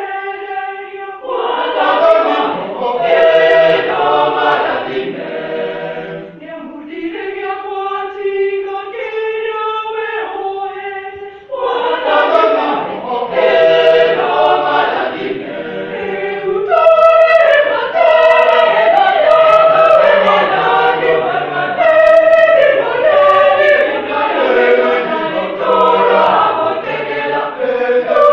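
Church choir singing in parts, with a quieter, thinner passage about a quarter of the way in before the full choir comes back in louder.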